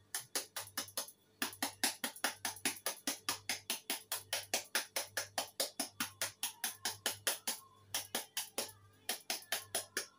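Knife blade striking a hard green mango held in the hand, in quick, even chops of about five a second, scoring the flesh for shredding. There is a short break about a second in, and the strikes are lighter near the end.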